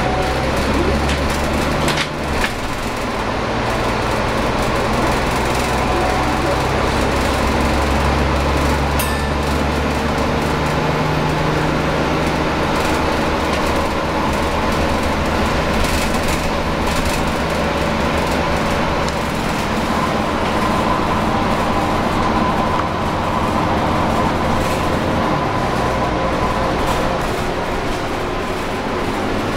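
Volvo B9TL double-decker bus's six-cylinder diesel engine and drivetrain running under way, heard from inside the upper deck. The engine note shifts in steps several times, with a faint high whine in the second half and a single knock about two seconds in.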